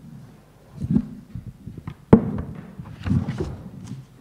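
Handling noise from a microphone being picked up and set on its stand: several dull thumps and knocks, the loudest about two seconds in.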